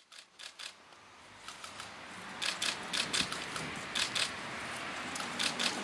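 Several pairs of scissors cutting a ribbon at once: quick, sharp snipping clicks that come thicker from about halfway through, over a background hubbub that grows louder.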